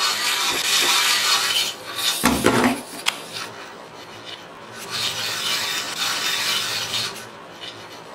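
Small toy octopus's mechanism running with a rasping whir: about two seconds of it at the start, a short knock a couple of seconds in, then another stretch of about two seconds.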